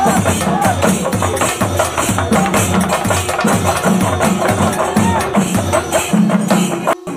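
Percussion music with a steady driving beat of drums and jingling hand percussion, a wavering melodic line above it. It drops out briefly near the end.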